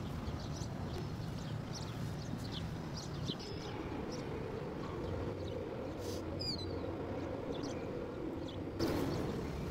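Outdoor ambience: small birds chirping in short, scattered calls over a steady low rumble, with one longer falling chirp a little past the middle.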